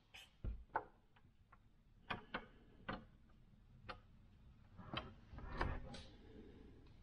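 A series of faint, sharp clicks and light knocks as a hand works a wooden door's metal lever handle and pushes the door open, with the loudest cluster, the latch and door, about five to six seconds in.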